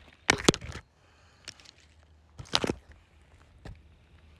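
Handling noise close to the microphone: two short clusters of sharp knocks and scuffs, one just after the start and another about two and a half seconds in.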